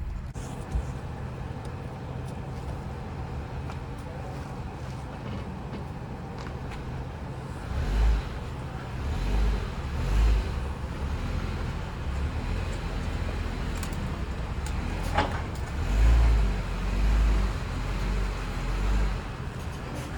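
Vehicle engine idling steadily, with several short, louder low rumbles and a single sharp click about halfway through.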